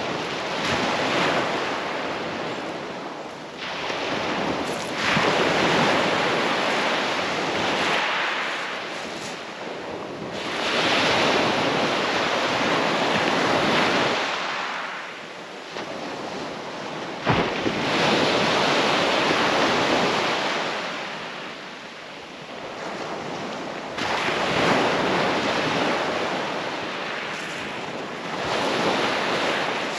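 Small waves breaking and washing up a shingle beach, swelling and fading every five or six seconds, with wind on the microphone. One sharp knock about seventeen seconds in.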